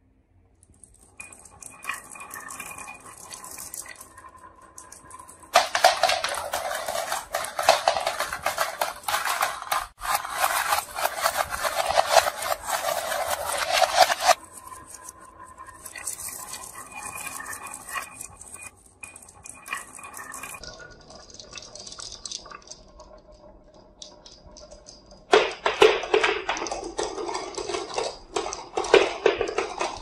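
Dozens of glass marbles rolling down a wavy wooden HABA marble-run track, clicking against each other and clattering on the wood in a dense, irregular rattle. It swells into two long loud stretches, one from about a fifth of the way in to about halfway and another near the end, with lighter clicking between.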